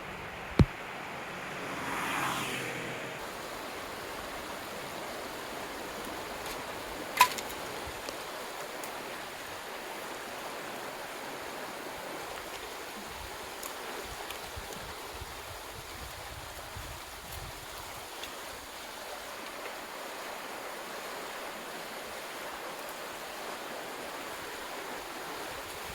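Mountain stream running with a steady rush of water. A sharp click sounds just after the start and another about seven seconds in.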